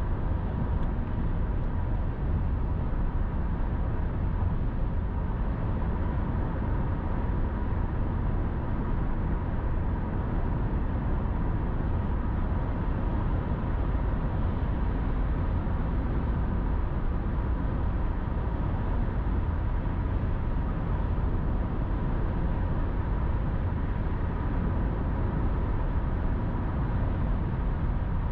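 Steady road noise of a car cruising at highway speed: a low, even rumble with a faint steady high tone running through it.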